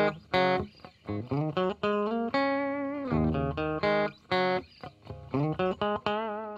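Intro music: a guitar playing a quick melodic line of plucked notes, some held, with a wavering, bent note near the end.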